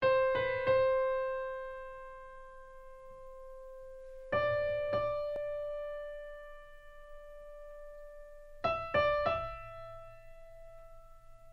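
Background music: slow piano notes, struck in small groups of two or three about every four seconds, each left to ring out and fade.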